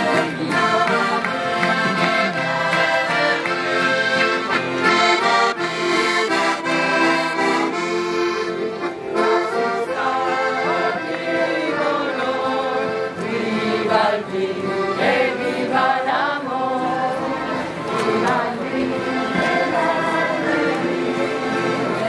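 Accordions playing a lively traditional folk dance tune.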